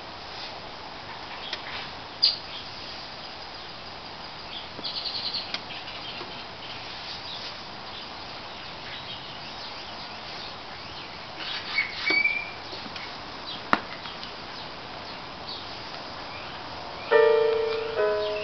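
Pioneer PL-A35 automatic turntable starting its play cycle: scattered mechanical clicks over a steady faint hiss, including a quick run of clicks about five seconds in, while the tonearm moves over the record. Near the end, piano music begins playing from the record.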